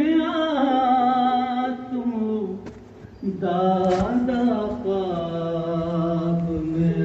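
A man chanting a soz, an Urdu Muharram mourning elegy, in slow, long-held melodic phrases. One phrase fades out about two and a half seconds in, and after a short pause a second long phrase begins.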